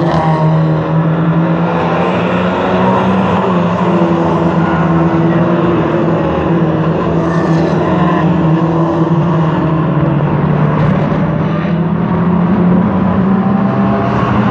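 Several Lightning Rods stock cars racing round the oval together, their engines held at high revs, with the pitch rising and falling as they lap past.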